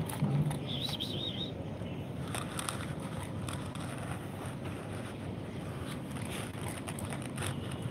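Steady low outdoor rumble, like wind on the microphone or distant traffic, with a brief high warbling chirp about a second in and a few faint clicks.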